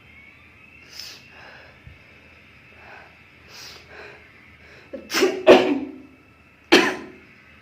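A woman sneezing twice: a loud voiced sneeze about five seconds in and a second, sharper sneeze just over a second later, after a few quiet breaths. The sneezes are deliberately provoked by tickling or irritating the nose.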